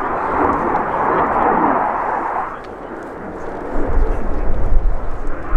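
Jet noise from a Leonardo T-346A's twin Honeywell F124 turbofans in a display flypast: a steady rushing noise that dips about two and a half seconds in, then swells again with a deep, uneven rumble.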